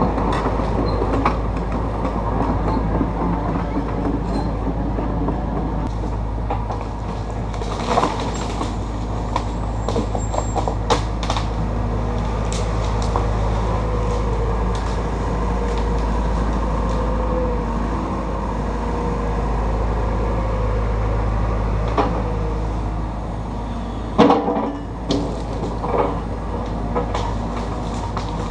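Takeuchi TB290 excavator's diesel engine running steadily while it works, with scattered sharp clanks and knocks and a cluster of louder knocks near the end.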